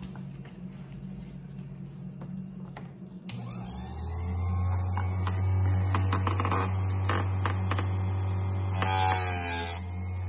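Electric chainsaw-chain sharpener's motor switched on about three seconds in, then running with a steady hum and whine. Near the end the grinding disc briefly touches a chain tooth with a short grinding rasp, a test pass to line the disc up on the tooth.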